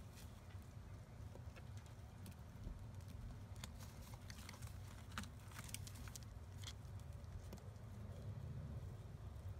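Faint irregular clicks and rustles of dry straw nesting material as the pigeon and her squab shift in the nest, most of them in the middle of the stretch, over a low steady rumble.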